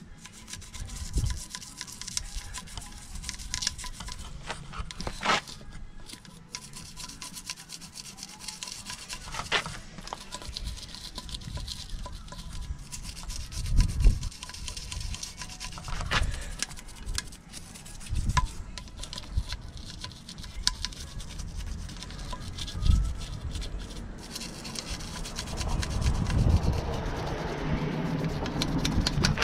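Toothbrush bristles scrubbing a wet alloy wheel's spokes in short, irregular strokes, with a few low thumps.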